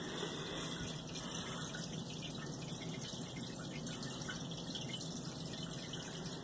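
Steady trickle and splash of water from an aquarium filter, with a low, even pump hum underneath.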